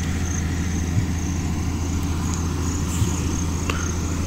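A steady low hum, with a faint, broken high chirring above it.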